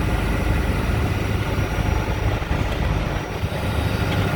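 A John Deere 220D W wheeled excavator's diesel engine running steadily at a constant level, a motor that sounds really good.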